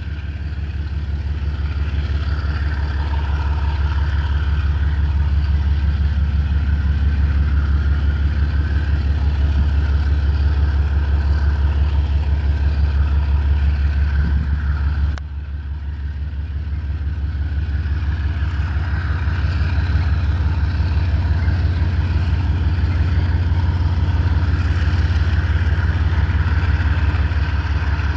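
Two GE TE33AC diesel-electric locomotives hauling a train, their GEVO V12 diesel engines running with a deep, evenly pulsing rumble that grows louder as they come closer. About halfway through the sound drops suddenly, then builds again.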